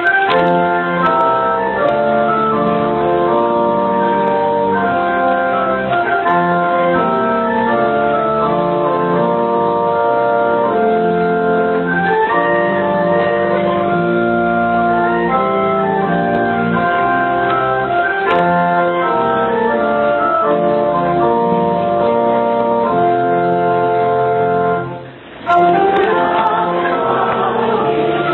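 Church organ playing slow, sustained chords that change every second or so, breaking off briefly about 25 seconds in before the music starts again.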